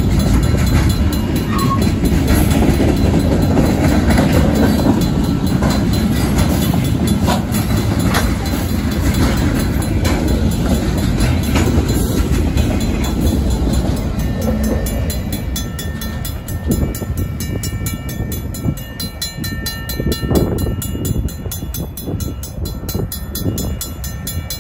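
Freight cars of a Union Pacific mixed freight rolling through a grade crossing: a loud wheel-and-rail rumble with clicks over the joints, fading away in the second half as the end of the train passes. The crossing's Safetran mechanical bell rings steadily behind it and is heard more plainly as the train noise dies down.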